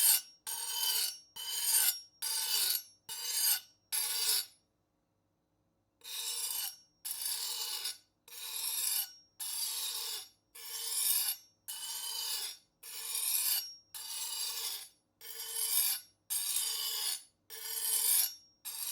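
Knife blade being sharpened: about twenty rasping strokes of steel drawn along a sharpener, each with a faint metallic ring. The strokes are quicker at first, stop briefly after about four seconds, then go on at about one a second.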